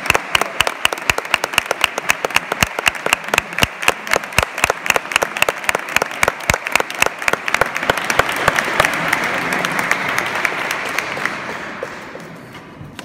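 Audience applauding, with one person's loud, even claps close by standing out over the crowd. About eight seconds in the single claps give way to a dense wash of applause, which then dies away near the end.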